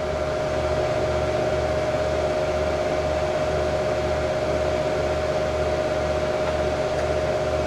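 HP Pavilion A1210N desktop PC's cooling fans running: a steady whir with a constant hum tone and a low throb pulsing about twice a second.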